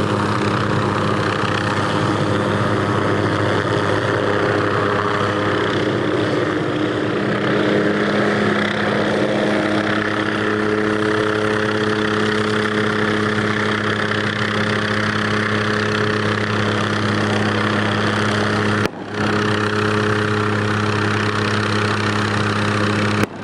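MD 500 light helicopter flying low overhead: the steady drone of its turbine and main rotor, with a constant low hum and higher tones that shift a little as it moves. The sound cuts out for a moment about three-quarters of the way through.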